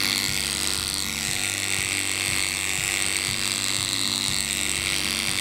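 Oster 3000i cordless pet clipper with a snap-on comb running steadily as it cuts through a miniature poodle's coat behind the ear and down toward the shoulder.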